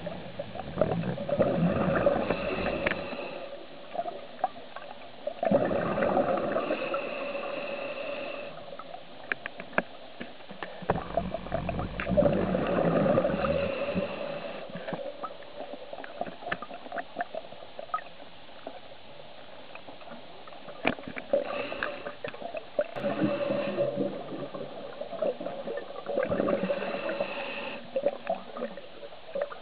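Scuba diver breathing through a regulator underwater: five bubbling exhalations of two to three seconds each, with quieter stretches and scattered clicks between them.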